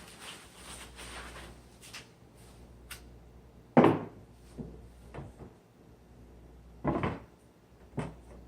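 Wooden parts of a sifter box being handled and set down: a handful of separate knocks and thuds, the loudest about four seconds in and another about seven seconds in, with lighter clicks in between.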